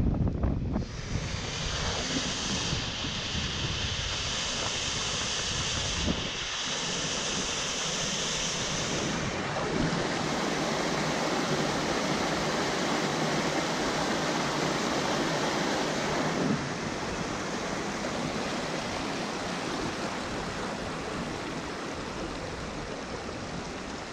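Rushing water of a small rocky mountain stream tumbling over boulders, a steady even hiss, with wind buffeting the microphone in the first second. The tone of the water shifts abruptly a few times.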